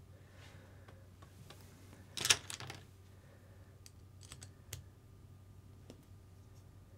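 Light clicks and handling noise from small plastic and metal RC kit parts worked by hand, with a short rustle about two seconds in.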